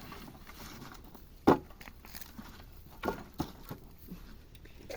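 Firewood being handled and loaded onto a wooden cart: one heavy knock about a second and a half in, then two lighter knocks around three seconds in.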